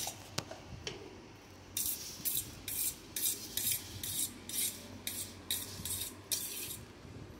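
Chopped cabbage and carrot being stirred with a spoon on a steel plate to mix in salt: a few light clicks, then a run of quick scraping strokes, about two a second, stopping shortly before the end.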